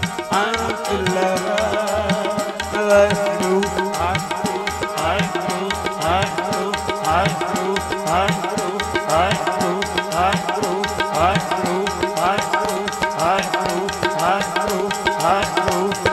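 Harmonium playing sustained chords over a tabla pair keeping a steady, even beat, with short upward sliding drum tones recurring through the rhythm: an instrumental kirtan passage with no singing.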